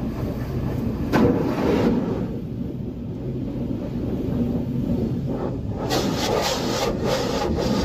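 Low, steady rumble of an idling car, heard from inside the cabin. From about six seconds in, a run of short hissing, clattering sounds joins it.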